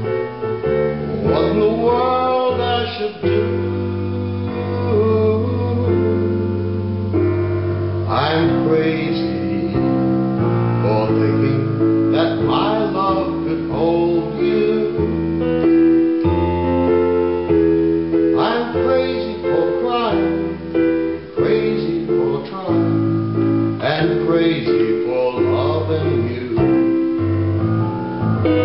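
Kurzweil digital stage piano playing a slow ballad in sustained chords, with a voice singing phrases over it at intervals.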